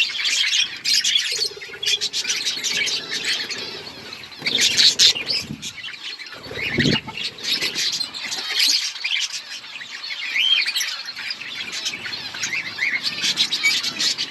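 A flock of budgerigars chirping and chattering continuously, many short warbling calls overlapping. A brief low thump sounds about halfway through.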